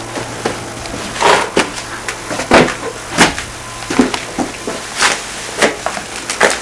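Irregular knocks and clunks of a cupboard or cabinet being handled and searched, about a dozen in a few seconds, over a low steady hum.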